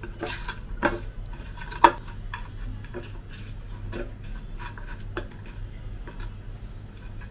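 Raw rohu fish-head pieces being tossed and rubbed in salt and turmeric by hand on a clay plate: irregular soft knocks and scrapes of the pieces against the plate, with one sharper knock about two seconds in. A low steady hum runs underneath.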